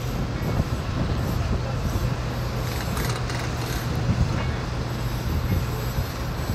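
A heavy engine running steadily with a constant low hum, under faint chatter of voices.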